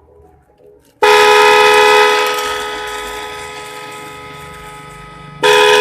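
Snail-type electric horn sounding a loud, steady two-tone blare about a second in, then dying away gradually before blasting again near the end.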